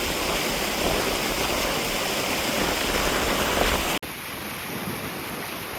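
Waterfall: a steady rush of falling water. About four seconds in it cuts abruptly to a quieter rush of water.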